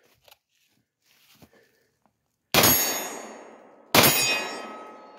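Two Glock 19 9mm pistol shots, the first about two and a half seconds in and the second about a second and a half later. Each trails off in a long ringing echo lasting over a second.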